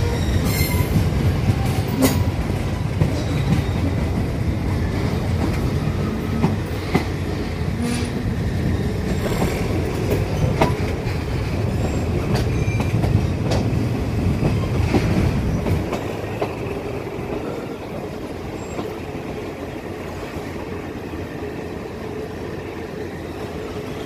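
Passenger train running on the Thai–Burma railway, heard from aboard: a steady low rumble of the carriage with scattered sharp wheel clicks over the rail joints. About sixteen seconds in the rumble drops off to a quieter run, as the train comes in to Wang Yen station.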